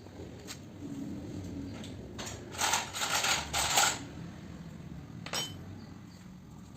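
Small metal parts or tools clinking and clattering, with a few separate sharp clicks and a busy burst of clatter between about two and four seconds in.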